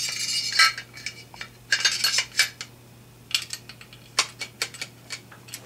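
Metal parts of a DRD Paratus .308 takedown rifle clicking and rattling as the upper assembly is fitted onto the lower receiver: several clusters of sharp metallic clinks with short ringing.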